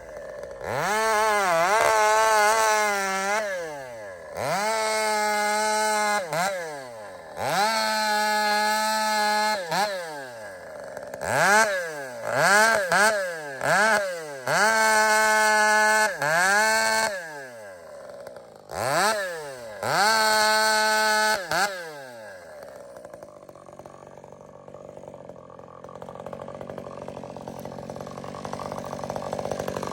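Ported Husqvarna 562xp two-stroke chainsaw with an expansion pipe, screaming at high revs: about eight times it climbs quickly to full throttle, holds for a second or three, then drops back. For the last several seconds it runs quietly at idle before picking up again near the end.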